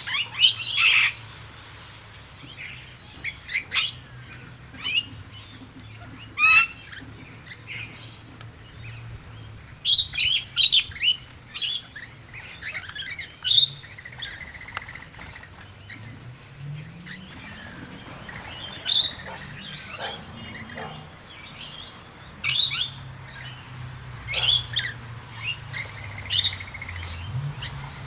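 A mixed flock of feeding birds calling: rainbow lorikeets, noisy miners and blue-faced honeyeaters, with bursts of short, sharp chirps and squawks at irregular intervals throughout.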